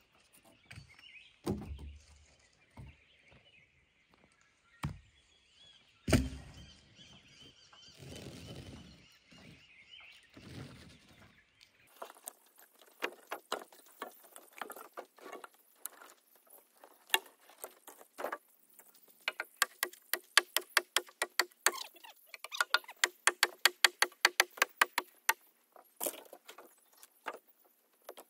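Burnt logs and branches being handled and dropped: a few heavy thuds, then a long run of rapid dry cracking and clicking, densest near the end.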